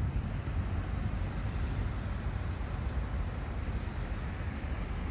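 Steady low rumble of a running vehicle, with no breaks or changes.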